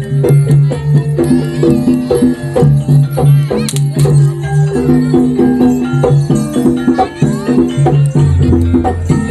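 Jaranan (kuda kepang) music: a traditional Javanese percussion ensemble playing a quick, steady rhythm of struck beats over sustained low pitched notes.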